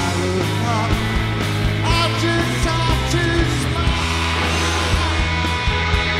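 Rock band playing live: electric guitar, electric bass and drums, with a singer's voice over them.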